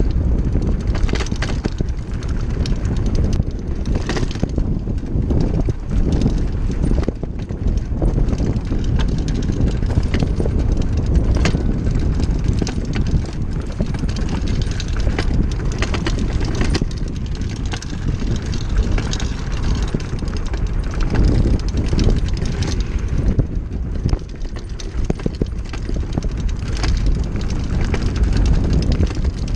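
Gios Stage 1 downhill mountain bike ridden fast down a bumpy dirt trail: wind on the microphone, tyres on dirt, and frequent knocks and rattles from the bike over the bumps.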